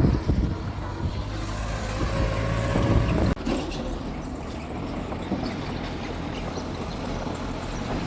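Mitsubishi G2 bulldozer's diesel engine running, louder for the first three seconds with a faint whine over the hum. It drops suddenly to a quieter, steady running a little over three seconds in.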